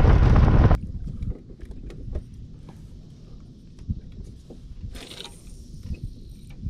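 Boat under way with heavy wind noise on the microphone, cut off abruptly under a second in. Then quiet, with scattered small clicks and knocks from handled fishing tackle and the jon boat, and a brief hiss about five seconds in.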